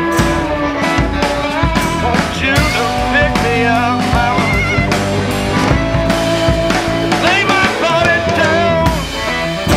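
Rock background music with guitar and a steady drum beat.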